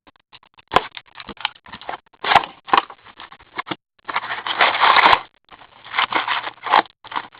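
Crackling, scraping and tearing of a Fleer Ultra hockey card box and its foil packs being opened by hand. It comes in short irregular bursts, with a longer tearing stretch a little past the middle.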